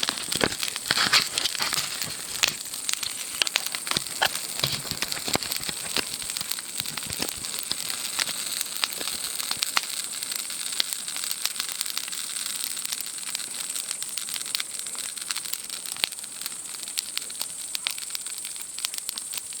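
Wood campfire crackling with dense, irregular pops and snaps, busiest and loudest in the first few seconds, over a steady high-pitched chirring of night insects.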